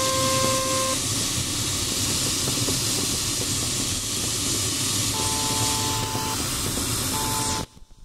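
Steady rush of air over an LS-4 glider's cockpit canopy in flight, with an electronic variometer sounding a steady tone that stops about a second in and comes back twice later at a slightly different pitch. The airflow noise cuts off suddenly near the end.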